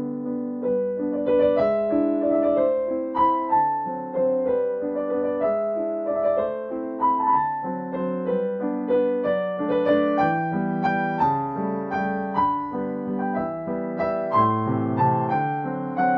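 Background piano music: a gentle melody of single notes over sustained chords.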